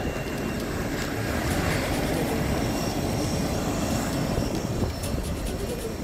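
Steady jet engine and airflow noise heard inside the cabin of a SpiceJet Boeing 737-800 in flight, recorded on a passenger's phone. The left engine has been damaged by a bird strike and is on fire.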